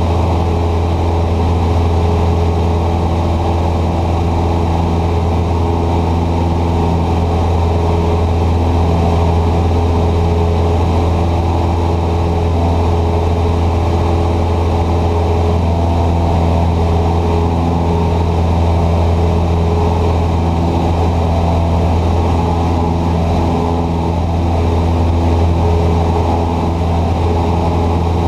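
Cessna 150's four-cylinder air-cooled Continental O-200 engine and propeller in flight, a loud, steady drone heard from inside the cockpit.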